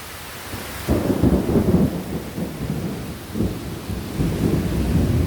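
Summer thunderstorm: a steady downpour of rain, then about a second in a loud, choppy low rumble sets in and keeps surging.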